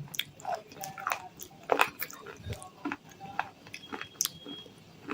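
Dry baked clay from a kulhad cup and diya lamps being crunched. It makes a rapid, irregular run of sharp cracks and crackles, with a few louder snaps a little under two seconds in.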